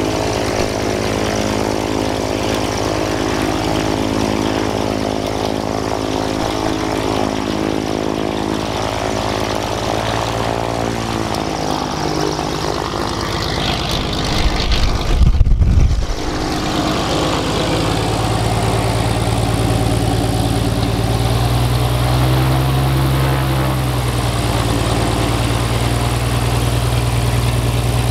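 An aerobatic monoplane's propeller-driven piston engine runs steadily at low power while the plane taxis. About halfway through, as the tail swings toward the microphone, a short gust of propeller blast buffets it. The engine sounds louder again as the plane taxis back past.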